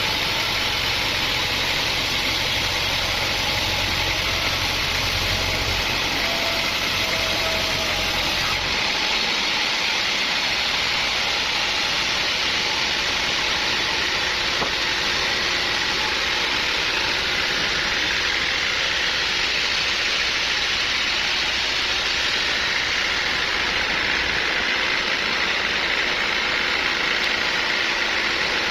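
Sawmill machinery running steadily with a loud, even mechanical noise. About a third of the way through, the low rumble underneath drops away while the higher noise carries on.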